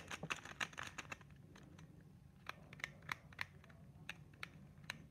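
Ball-bearing pyraminx puzzle turned by hand: faint sharp plastic clicks of its layers and tips turning, a quick run in the first second, then scattered single clicks.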